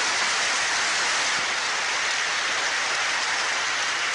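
Large audience of delegates applauding in a hall: loud, dense, steady clapping.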